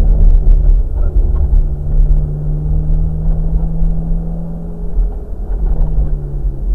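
Ferrari F430 Spider's 4.3-litre V8 running at a steady cruise, its note creeping up slightly, then dropping away about five seconds in as the throttle eases and settling lower. A heavy low rumble of wind and road noise comes through the open-top cabin.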